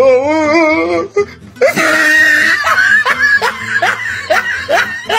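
Loud, hearty human laughter: a long wavering laugh, then a run of quick repeated laughs at about three a second, cut off suddenly at the end.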